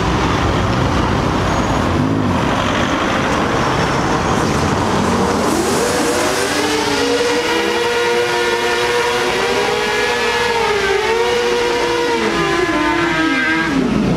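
A car drives past, then another car does a burnout, its engine held at high revs for about seven seconds while the tyres spin. Near the end the revs drop and pick up again.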